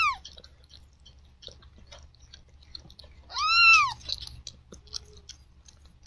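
Newborn kitten mewing: one high, thin cry that rises and falls about three and a half seconds in, with the end of another right at the start. Faint scattered clicks run between the cries.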